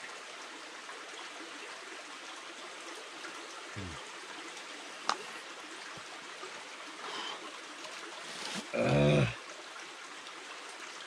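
Steady rush of a nearby forest stream, even throughout. A sharp click about halfway, and a man's short vocal sound, the loudest thing, a little before the end.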